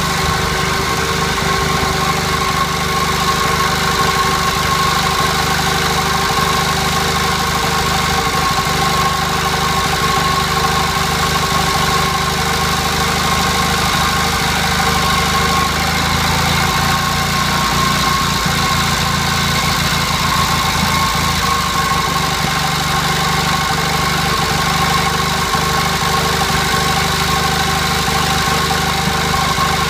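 J.A.P. Model 55 generator set's engine running steadily, driving its generator. The note shifts slightly about halfway through.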